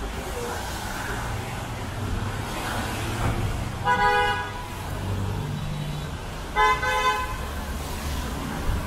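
A car horn honks twice, each about half a second long and roughly two and a half seconds apart, over a steady rumble of city traffic.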